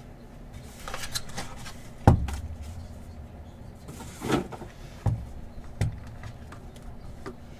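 Stack of trading cards in clear hard-plastic holders being handled on a tabletop. About two seconds in there is a sharp knock with a dull thud, then a few lighter plastic clacks and rustles as the stack is tapped and shifted.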